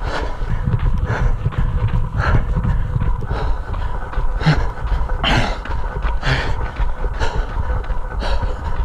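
A runner's hard, heavy breathing, a strong exhale about once a second, over wind rumbling on the microphone.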